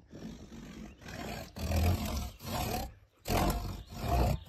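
Worm fiddling: a flat tool rubbed back and forth across the top of a sapling stake driven into the ground, about five strokes each roughly half a second long, starting about a second in. The vibration runs through the roots and soil to drive earthworms up to the surface.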